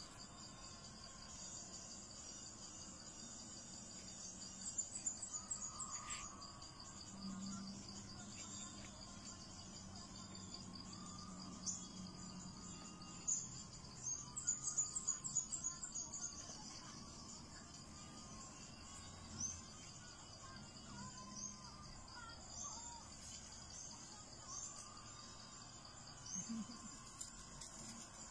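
A steady, high-pitched chorus of insects trilling, with louder rapid pulsing trills around 5 s and again from about 14 to 16 s, and a few short high chirps scattered through the second half.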